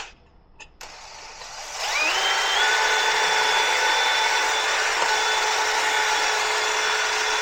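Electric drill boring a pilot hole through the metal plate of a TV wall mount. The drill stops at the start, restarts about a second in, rises to a steady high whine around two seconds in, and keeps running.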